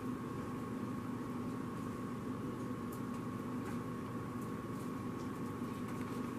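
Steady hum of a running kitchen appliance with a faint high whine, and a few faint taps as hands turn shrimp in a plastic tub of seasoned flour.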